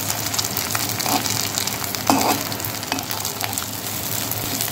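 Corn-and-potato cutlets sizzling as they shallow-fry in a little oil in a thin-bottomed kadhai on a low flame, with a spatula scraping against the pan as they are turned a few times; the loudest scrape comes about two seconds in.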